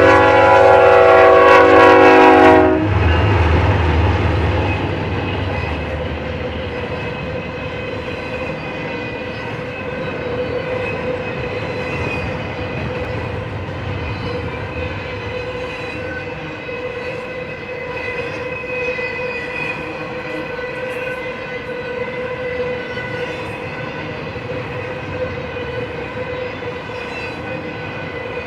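Horn of a GE ES44DC diesel-electric locomotive sounding a chord that cuts off about two and a half seconds in, with the engine rumbling past. Then the intermodal container cars roll by with steady wheel-on-rail noise and a faint steady whine.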